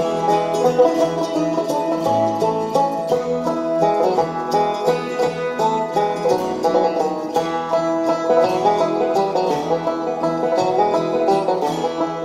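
Acoustic guitar picked solo, a steady run of quick plucked notes in a bluegrass-style tune.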